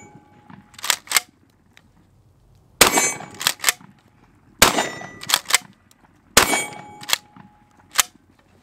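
TriStar Cobra III Marine 12-gauge pump-action shotgun firing three shots about two seconds apart. The pump action clacks twice after each shot as the forend is racked back and its spring returns it forward, with one more racking about a second in.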